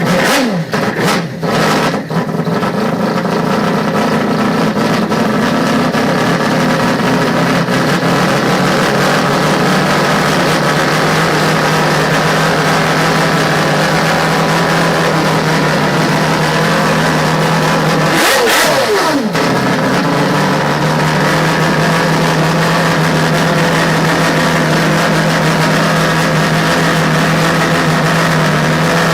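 Mazda rotary (Wankel) engine car running hard at sustained high revs, a steady buzzing engine note. Several sharp cracks come in the first two seconds, and the revs briefly drop and climb again about 18 seconds in, like a gear change.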